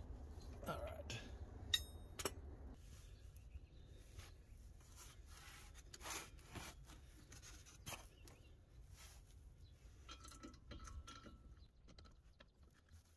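Faint, irregular metallic clicks and knocks of a socket ratchet and suspension hardware being handled under a car, with one sharp ringing clink of metal on metal about two seconds in.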